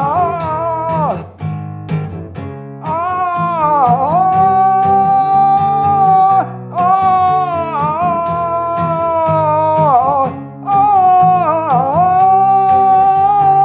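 A man singing long held notes, sliding down in pitch between them, over an acoustic guitar playing chords.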